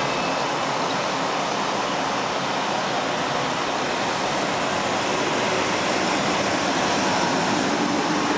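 ED4M electric multiple unit rolling past along the platform: a steady rushing noise from the moving cars.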